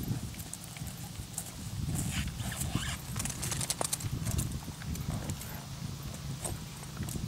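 Tennessee Walking Horse gelding walking on grass under a rider, then halting: soft hoof steps with scattered light clicks.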